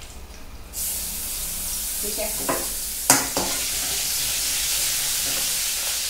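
Garlic hits hot oil in a metal kadhai and bursts into a sizzle about a second in. It keeps frying steadily as it is stirred with a spoon, and the spoon clinks sharply on the pan about three seconds in.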